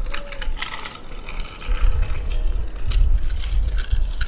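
Kick scooter wheels clicking and rattling as they roll over cracked asphalt. From a little under two seconds in, low gusts of wind rumble on the microphone.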